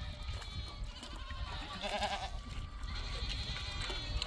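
Goats bleating: one loud, quavering bleat about two seconds in, then fainter wavering bleats near the end.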